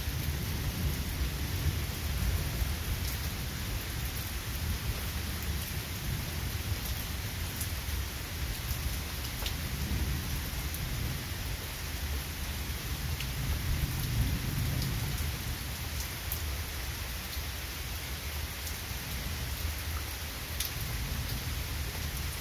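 Steady rain falling on grass and trees, with scattered close raindrop ticks. Low rumbling of distant thunder swells under the rain about ten seconds in and again a few seconds later.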